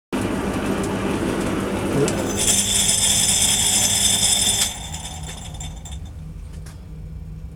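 Metal lathe running while turning a steel spindle. About two and a half seconds in, a loud high-pitched ringing squeal from the cut comes in for about two seconds and stops sharply, leaving the lathe running more quietly.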